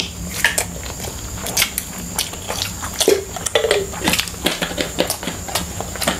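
Close-up eating sounds: people chewing fried rice, with frequent small sharp clicks and smacks. There are two brief hummed murmurs about halfway through.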